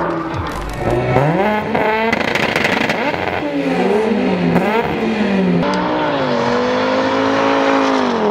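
Drag-racing car engines at full throttle, pitch climbing through the gears and dropping at each shift. In the middle two engines are heard at once, one rising as the other falls.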